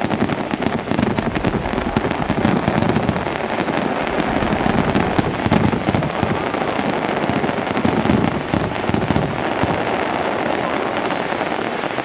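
Aerial fireworks bursting in a dense barrage: a continuous rapid crackle of many small bangs, with heavier booms every couple of seconds.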